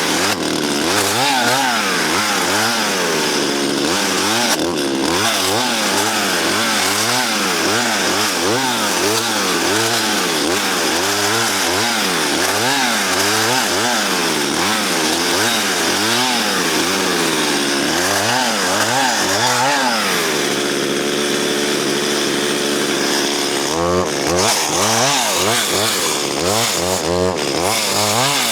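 Chainsaw cutting through a fallen spruce, its engine speed rising and falling over and over, about once a second, as the bar works into the wood, with a steadier stretch near the end. The chain is dull at this stage and struggles through the wood.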